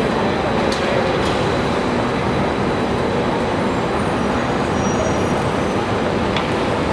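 Steady city street traffic noise, with an electric trolleybus turning through the intersection.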